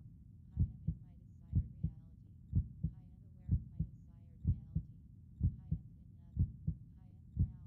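Slow, steady heartbeat: a double lub-dub thump repeating about once a second.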